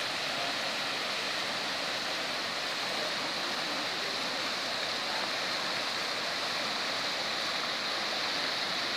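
Fast floodwater rushing and churning around tree trunks: a steady, unbroken rush of moving water.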